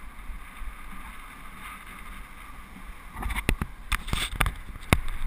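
Steady rush of riding noise on a helmet-mounted GoPro during a road bike ride. From about three seconds in, a hand handles the camera, giving a run of loud knocks and scrapes on the housing.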